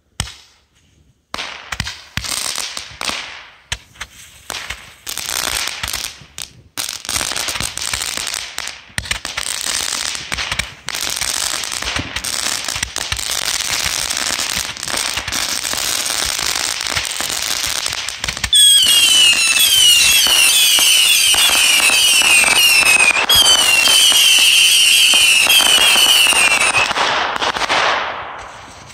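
Ground-lit consumer firework going off: a sharp pop at lighting, then dense crackling and cracking as it throws up sparks. About two-thirds of the way through it turns louder, with warbling whistles over the crackle, then dies away near the end.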